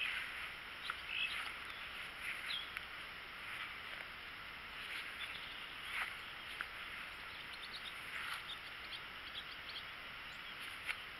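Birds chirping in short, scattered calls over a steady outdoor background hiss.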